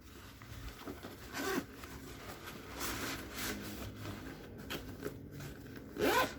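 Backpack zipper pulled in several short runs, with fabric rustling as the pack is handled.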